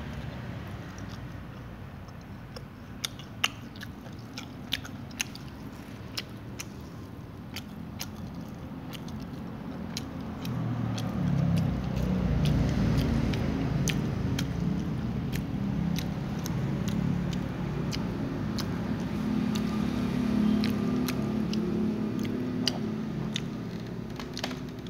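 A cat chewing crunchy fried cassava, with sharp, irregular crunches and clicks all through. From about ten seconds in, a louder low rumble joins the chewing.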